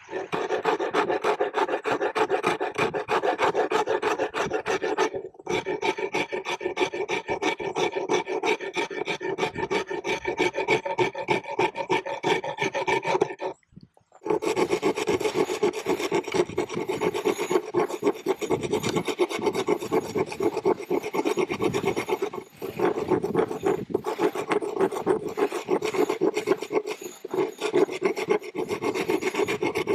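A hand rasp scraping in quick repeated strokes along a wooden axe handle, shaping the wood. It breaks off briefly about five seconds in, pauses for about half a second around fourteen seconds, and breaks again briefly near twenty-two seconds.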